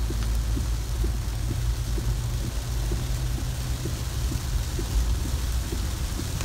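Inside a moving car in heavy rain: a steady low rumble of the engine and tyres on the wet road, with rain hitting the windscreen and roof as an even hiss and faint scattered ticks.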